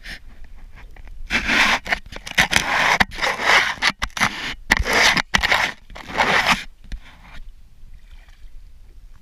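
Fishing reel's drag buzzing in about half a dozen spurts as a large pike takes line against the bent rod, stopping a couple of seconds before the end.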